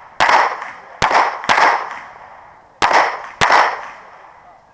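Five pistol shots in quick pairs, each followed by a short echo: a shot just after the start, then two pairs about half a second apart, about a second in and about three seconds in.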